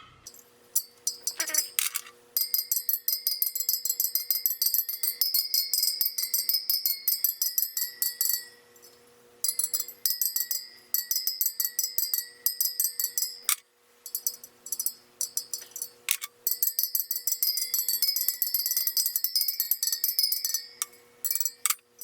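Spokes of a Sur Ron Light Bee front wheel pinged in quick runs, many metallic taps a second with a ringing tone, in bursts of a few seconds with short pauses. The pitch of each spoke is being compared to judge its tension, a dull ping marking a spoke that is too loose.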